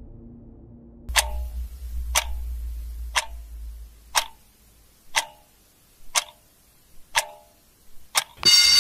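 Clock ticking, one sharp tick about every second, eight ticks in all. A low hum underneath fades out over the first few seconds, and music cuts back in just before the end.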